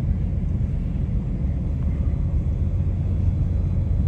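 Steady low rumble aboard a cruise ship under way.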